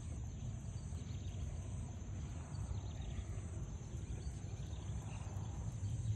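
Rural outdoor ambience: a low rumble of wind on the microphone under a steady high drone of insects.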